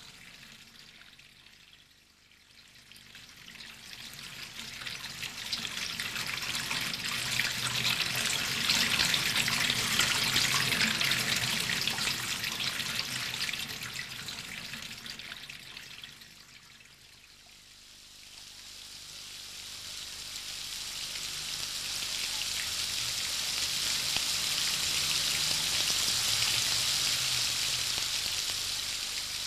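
Rushing, splashing water noise that swells up and dies away twice, each swell lasting about a dozen seconds, over a faint low hum.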